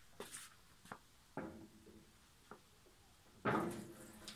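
A wooden cutting board and a small copper pot set down at a sink: a few light knocks, then near the end a louder clank of the metal pot that rings briefly.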